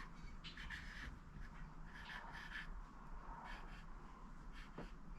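Someone writing by hand: faint, irregular scratching strokes.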